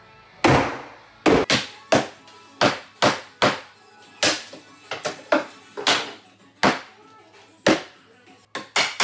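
Small sledgehammer striking an upper wall cabinet of melamine board to knock it loose from the wall. There are about a dozen hard, hollow whacks at uneven spacing, each ringing briefly. Near the end a faster, even run of knocks begins.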